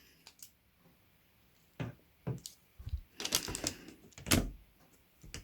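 Light clicks and knocks of a mechanical keyboard and its parts being handled on a work surface, a cluster of taps in the middle and a louder knock near the end.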